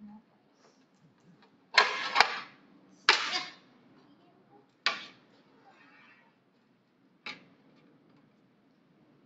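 Metal rotisserie spit and its prongs scraping and knocking against a baking tray as the spit is worked out of a roast chicken. A longer scrape comes about two seconds in, with shorter ones at about three, five and seven seconds.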